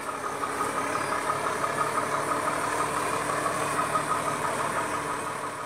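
Heavy truck's diesel engine running steadily at low speed.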